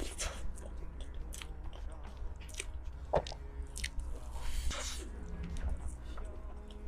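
Close-miked chewing of soft cake: wet, sticky mouth sounds with irregular small clicks and smacks, the sharpest about halfway through, over a steady low hum.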